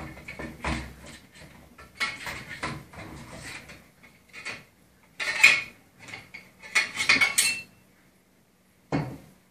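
Metal chimney-flue fittings and cleaning rods clinking, knocking and scraping as they are handled at a stainless pipe's cleanout port: a string of irregular clatters, loudest about five and a half and seven seconds in, with a last short knock near the end.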